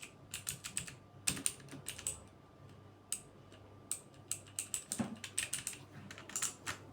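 Keys being pressed on a Torima TK05 mechanical keyboard with clicky blue switches: sharp clicks in short, irregular runs with brief pauses between them.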